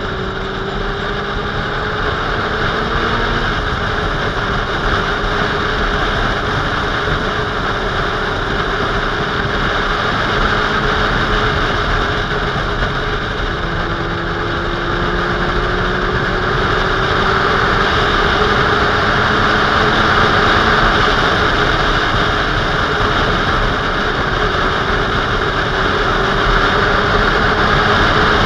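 Motorcycle riding at steady cruising speed: loud wind rush over the microphone, with the engine's hum underneath, its pitch drifting slightly up and down with the throttle.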